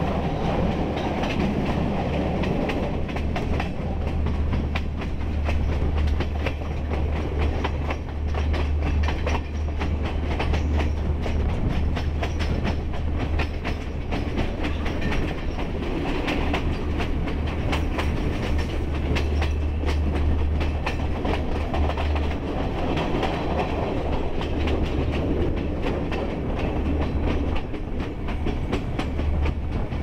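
Passenger train running along the track, heard from beside the moving carriage: a steady low rumble with a constant rapid clatter of wheels over the rails.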